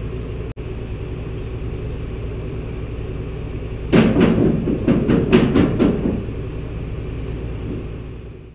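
Farm tractor engine running steadily, with about two seconds of loud rattling, clattering knocks about four seconds in; the engine sound fades out near the end.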